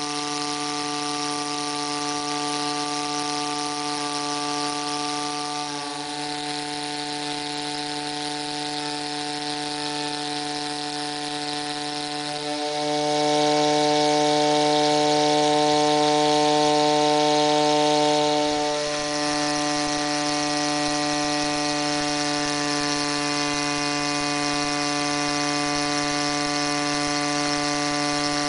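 Philcraft Jenny Wren miniature steam engine, a small single-cylinder oscillating engine, running fast and steady: a continuous high buzz over a hiss, with its exhaust steam blown up the boiler flue. It grows louder for about five seconds in the middle, then settles back.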